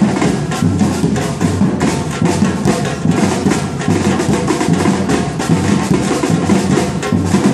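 A street drum group playing a steady rhythm together on large bass drums and snare drums.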